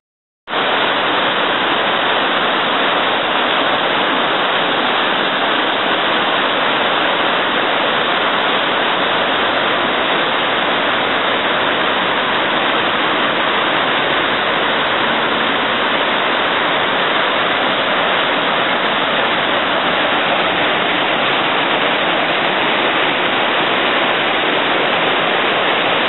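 Shallow river rushing over rocks in white-water rapids: a loud, steady rush of water that cuts in about half a second in.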